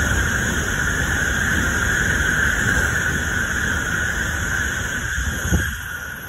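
N700-series Shinkansen passing at high speed, about 165 km/h: a steady rushing rumble with a high hiss over it. The sound fades as the last car goes by, with a brief knock shortly before the end.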